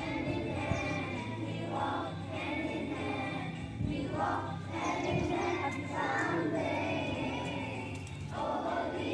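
A group of voices singing a prayer song together over steady instrumental backing.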